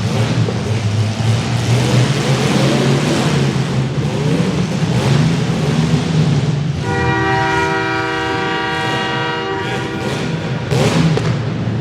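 Compact demolition derby cars' engines revving up and down, with repeated crashes of metal on metal. Past the middle, a loud horn sounds steadily for about three seconds.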